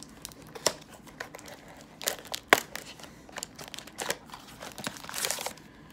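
A boxed pack of baseball cards being opened: packaging crinkling and tearing in a run of sharp, irregular crackles, the loudest about two and a half seconds in.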